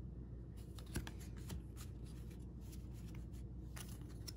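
Faint rustling and light clicking of baseball cards being handled, turned over and slid against each other, over a low steady hum.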